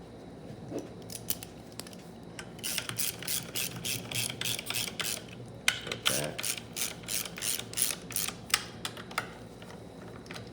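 Hand ratchet wrench clicking in quick runs of about four clicks a second, with a short break midway, as bolts on a TH400 transmission are run in.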